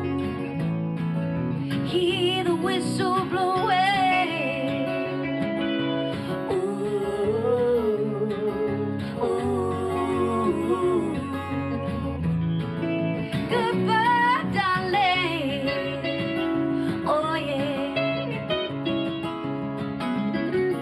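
Music: a live country-folk song with guitars playing and a wavering lead melody line over them, without lyrics.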